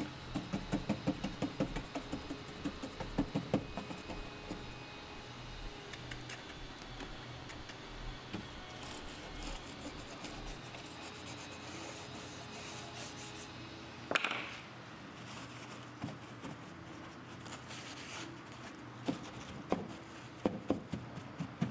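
Paintbrush scrubbing a dark paint wash into a dollhouse, with quick back-and-forth strokes for the first few seconds, then quieter brushing. A brief sharp sound comes about fourteen seconds in, and a few sharp taps near the end.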